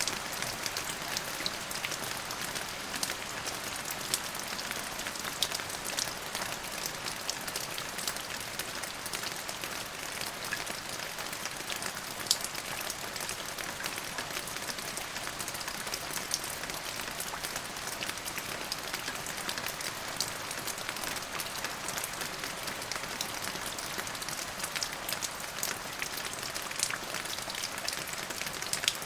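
Steady rain falling, an even hiss with many close drops ticking sharply on a hard surface.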